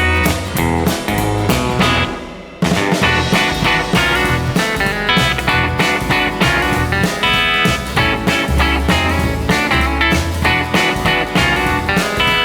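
Background music: guitar-led rock with a steady beat and bass line, breaking off briefly about two and a half seconds in.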